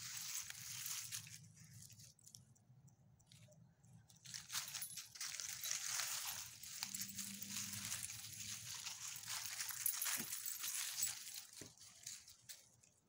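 Dry fallen leaves crunching and rustling under small dogs' paws as they walk and sniff through them. The crackling stops for a couple of seconds early on, then resumes thickly about four seconds in and thins out near the end.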